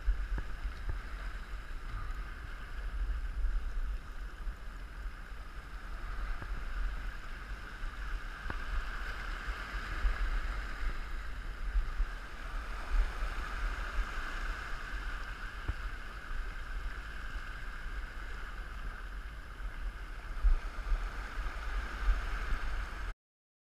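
Wind rumbling on the microphone over waves washing across shoreline rocks; the sound cuts off suddenly near the end.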